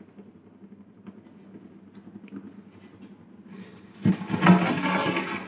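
Quiet room hum, then about four seconds in a large aluminium pot lid, sealed to the rim with dough, is pulled off with a sudden loud scrape.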